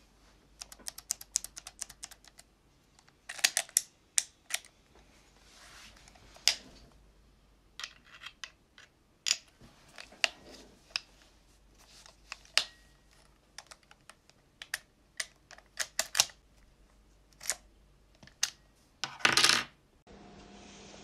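Irregular mechanical clicks and rattles from a Mercedes W140 ignition lock assembly and its key, worked by hand with the key being turned and the interlock operated in place of the transmission cable to release the key. A short, louder rustle of handling comes near the end.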